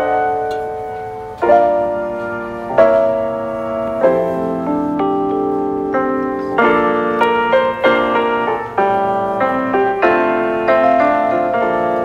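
Background piano music: chords and single notes struck every second or so and left to fade.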